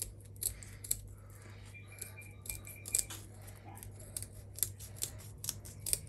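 Ordinary kitchen scissors snipping through the fins along the belly of a raw hilsa fish. A run of short, sharp snips comes irregularly, a few a second.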